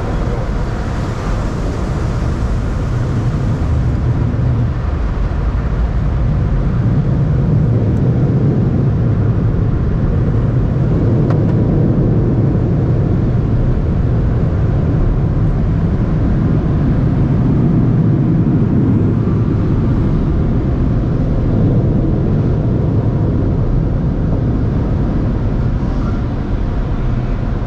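Automatic conveyor tunnel car wash heard from inside the car: a loud, steady rushing rumble from its water jets and machinery.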